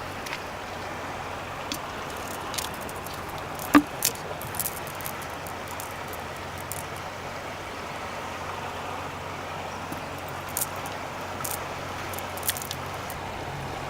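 Steady rush of river water, with scattered small clicks and one sharp knock a little under four seconds in.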